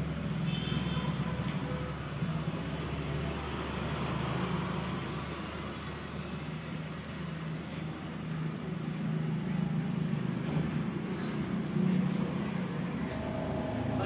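Low rumble of road traffic that swells and eases over several seconds.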